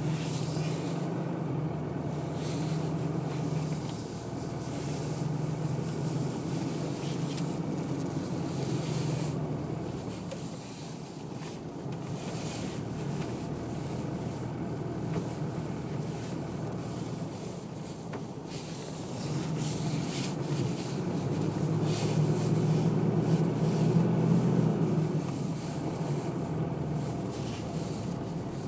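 Vehicle engine running while driving on a gravel road, with tyre and wind noise. The engine note rises and grows louder about two-thirds of the way through, then drops back.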